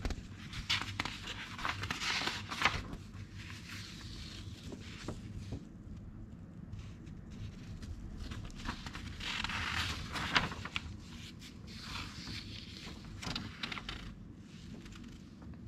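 Pages of an old 1960s paper magazine being handled and turned, the dry paper rustling and crinkling in three bursts: about a second in, around the middle, and again a few seconds later.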